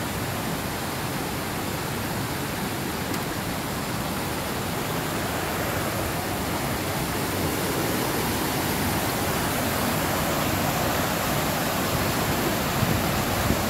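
Rain-swollen creek rushing over rock in small waterfalls and rapids: a steady, even rush of water that grows slightly louder toward the end.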